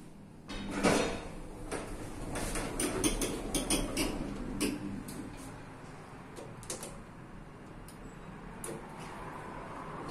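Lift doors sliding open at ground level, with a run of sharp clicks and knocks, then quieter running as the lift doors close again.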